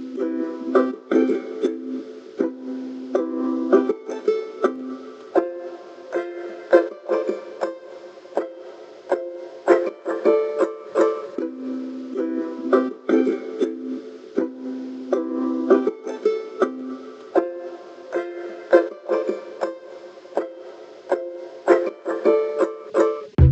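Instrumental music: a plucked-string melody, ukulele-like in tone, picked note by note in a repeating phrase with no bass underneath.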